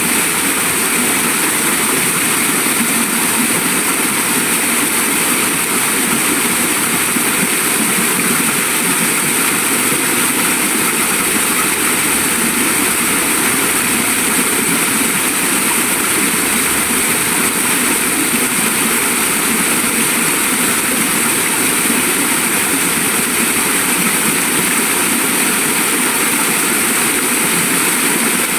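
Waterfall: the steady rush of falling water, an even hiss that never breaks or changes.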